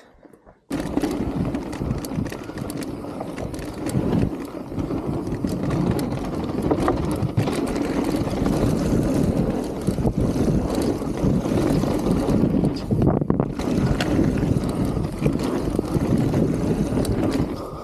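Wind rushing over the camera microphone as a mountain bike descends fast, with its tyres rolling over a dirt trail and the bike knocking and rattling over bumps. The sound starts abruptly about a second in.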